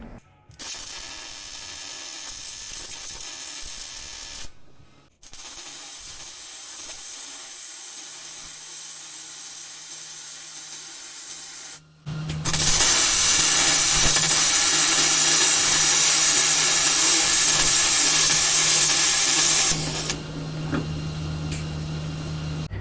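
Metalworking tools on the car's motor mount brackets, heard in several short cut-together stretches. The loudest is a hard, steady hiss lasting about seven seconds, starting about twelve seconds in, over a steady low hum.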